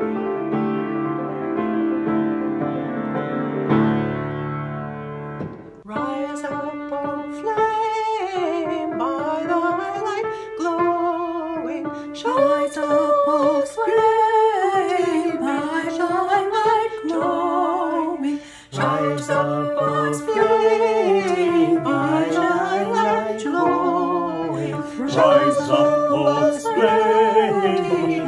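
Grand piano playing sustained chords for about six seconds, then stopping. Voices then sing a slow hymn melody without accompaniment, and the sound thickens as more voices join in the second half.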